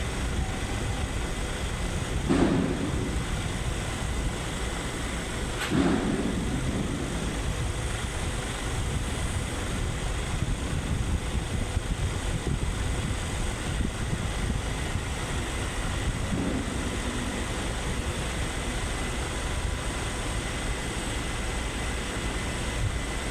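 Excavator's diesel engine running steadily, with two short louder noises a couple of seconds in and about six seconds in, and a fainter one later.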